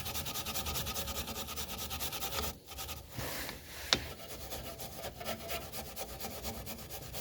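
Rapid, even scrubbing strokes as rust is scoured off a drum brake backing plate, with a short break about two and a half seconds in. A single sharp click, the loudest sound, comes just under four seconds in.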